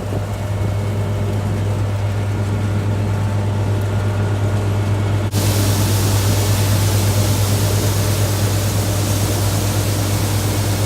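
Combine harvester engine running steadily: a low, even drone under a hiss of noise that turns brighter about five seconds in.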